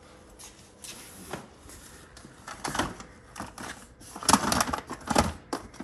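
Items clattering and rustling as they are rummaged through in a storage box: a run of knocks and clicks, busiest and loudest between about four and five seconds in.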